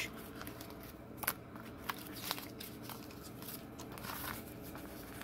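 A thin paper manual being picked up and handled, its pages rustling, with a few light ticks and a longer rustle near the end.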